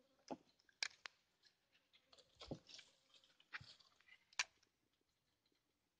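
Faint, scattered clicks and knocks from handling a fishing rod and spinning reel close to the microphone, about six in the first four and a half seconds with the sharpest near the end of them, then near silence.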